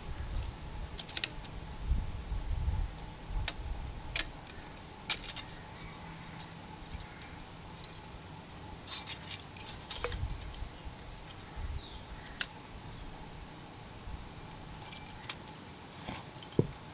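Motorcycle cam chain jangling and clicking as it is handled and threaded through a cylinder-head gasket onto the studs, with scattered sharp metallic clicks and a few light knocks at irregular intervals.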